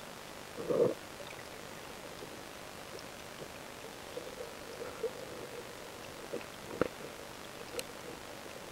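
Underwater ambience picked up by a submerged camera: a steady hiss, a short muffled burst about a second in, a few faint pulses, and two sharp clicks near the end.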